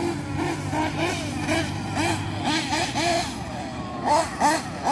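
Electric motor of a WLtoys 12429 RC buggy whining, its pitch rising and falling in quick sweeps as the throttle is worked, loudest near the end.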